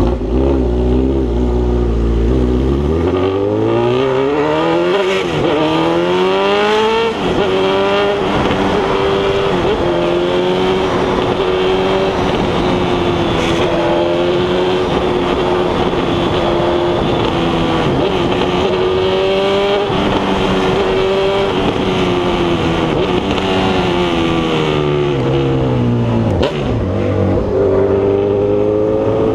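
Honda CB1000R's inline-four engine running loud: it pulls away from idle, the revs climbing in steps through gear changes over the first several seconds, then holds a steady cruising note that rises and falls a little. The revs drop sharply about 26 seconds in.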